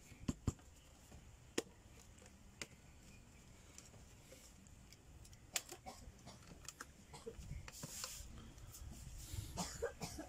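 Scattered small clicks and taps of a small plastic speaker housing being handled and fitted back together, with a busier run of knocks near the end.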